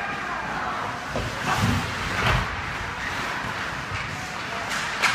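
Ice hockey play heard from rinkside: skates and sticks on the ice over the hum of the rink, a few dull thumps about two seconds in, and one sharp crack near the end.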